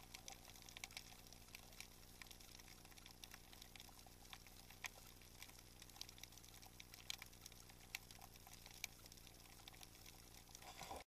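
Faint underwater ambience: a low hiss with scattered sharp clicks and crackles, cutting off suddenly near the end.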